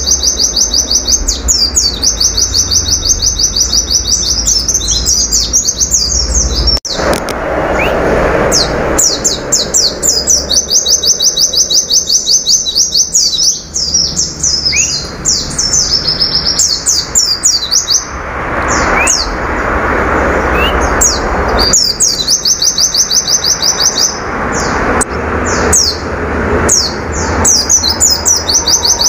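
Caged white-eye (pleci) singing its rapid-fire 'nembak' song: long runs of very fast, high, repeated 'tulit-tulit' notes, broken every few seconds by short pauses with a few single notes.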